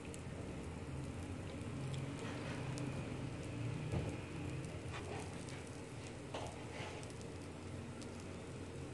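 Oiled paratha frying on a hot tawa, sizzling with scattered small crackles and pops over a low steady hum.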